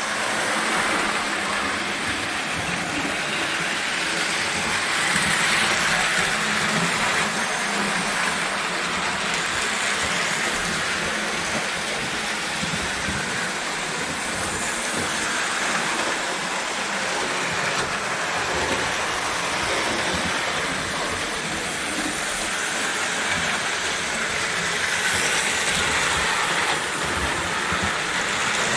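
O gauge toy electric train running steadily on its track: a continuous whir of the motor and the wheels on the rails.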